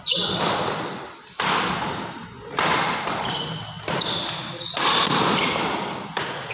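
Badminton rackets hitting the shuttlecock in a rally, about five sharp hits a second or so apart, each ringing out and fading in the echoing hall. Short high sneaker squeaks on the wooden court come between the hits.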